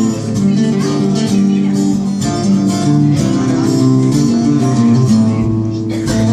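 Acoustic guitar strummed and picked, playing a run of chords.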